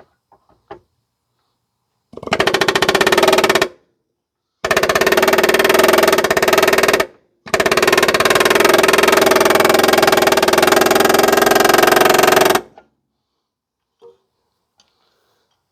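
Handheld power tool run against the rusted exhaust hanger in three bursts, a short one and then two long ones, its pitch wavering under load.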